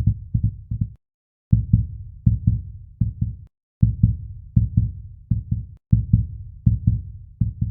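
Intro music with a deep bass drum beat, played in short phrases broken by brief silent gaps.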